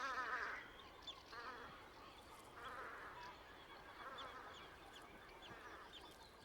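A series of duck calls with a wavering, warbling pitch: the loudest right at the start, then four or five fainter ones about a second apart, with faint short high chirps in between.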